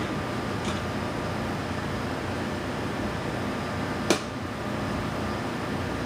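A steady mechanical hum runs under small clicks from hands working at the hub of an aircraft wheel half. One sharp click about four seconds in is the loudest sound.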